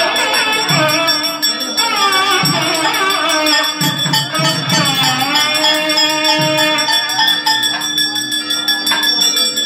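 Traditional South Indian temple music: a wavering melody over a steady held drone, with jingling bells.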